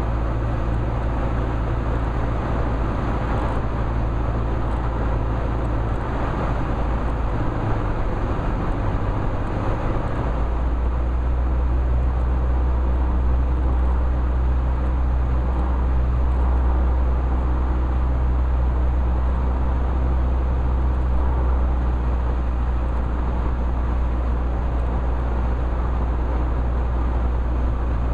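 Cessna 172's single piston engine and propeller droning steadily, heard inside the cabin with airflow noise, on final approach. About ten seconds in the engine note shifts lower and holds there.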